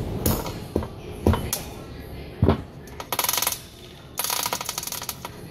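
A few sharp metal knocks, then a hand chain hoist being pulled, its chain clattering over the sprocket in two quick runs of rapid clicks.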